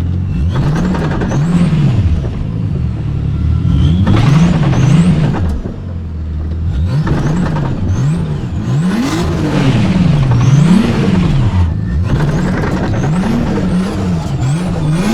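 Nissan Laurel's engine revving up and dropping back again and again in quick swells, with short lulls about six and twelve seconds in.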